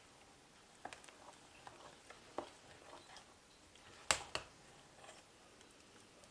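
A few faint, scattered clicks and taps against a quiet background, the loudest two close together about four seconds in.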